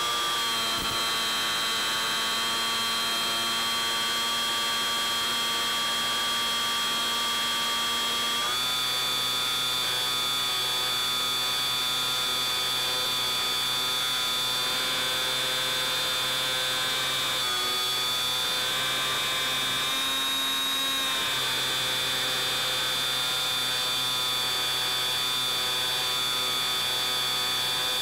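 Bixler 3 model plane's electric pusher motor and propeller whining steadily in flight. The pitch steps up a little about eight seconds in and wavers briefly twice later on.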